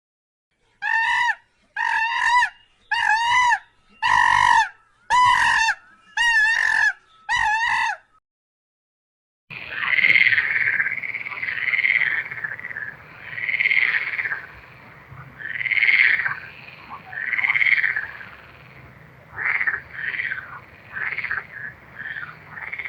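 Animal calls: seven short pitched calls about once a second, then after a short gap a different, rougher call repeated about every two seconds, coming faster near the end.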